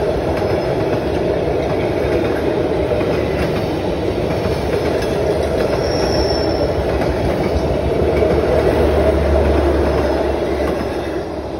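Vietnam Railways passenger coaches rolling past at close range: a steady rumble and rattle of steel wheels on the rails. A low hum grows louder in the second half as the train's generator car passes, then the sound eases off at the very end.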